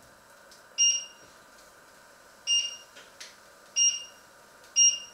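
Electric stove's touch controls beeping four times at uneven intervals, a short high beep with each press as the heat setting is changed.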